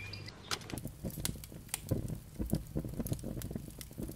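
Kerosene-soaked charcoal catching fire in a terracotta flower-pot barbecue: the flames crackle with many sharp, irregular pops, starting about half a second in, over a low rumble.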